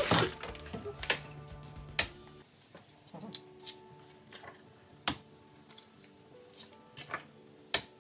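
Soft background music of held chords, with a few sharp clicks scattered through it.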